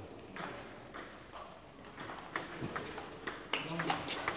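Table tennis rally: the celluloid-type ball clicking sharply off the bats and the table in an irregular series. The clicks come thickest in the last second.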